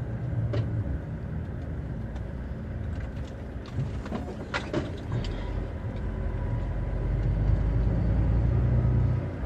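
Truck's diesel engine and road noise heard from inside the cab while driving: a steady low rumble that grows louder from about five seconds in, with a few light clicks and knocks shortly before.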